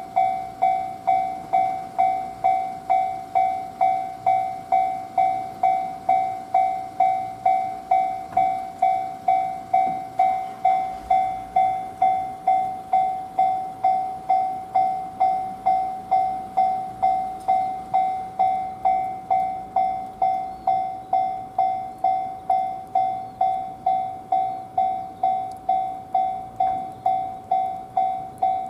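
Japanese railway level crossing warning bell ringing on and on at a steady pace, about three dings every two seconds, each dying away before the next. It keeps sounding with no train passing, which the uploader suspects is a crossing fault in heavy snow.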